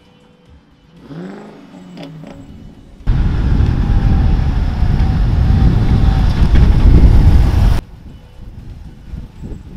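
Car driving across a car park: a faint engine note rising in pitch, then a loud low rumble that cuts in suddenly about three seconds in and cuts off just as suddenly about five seconds later.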